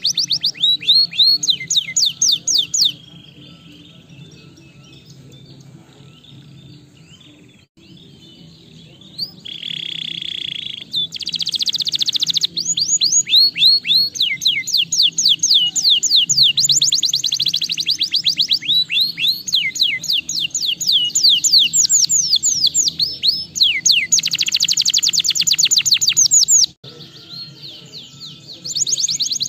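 Domestic canary singing: long runs of fast trills made of rapidly repeated falling notes. The song breaks off for several seconds early on, returns with a short buzzy note, then runs on in long trills before stopping shortly before the end.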